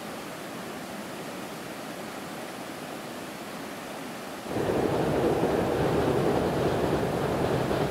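Steady outdoor ambience, an even hiss of wind and air. About four and a half seconds in, a much louder steady rumble comes in suddenly: a train crossing a steel truss railway bridge.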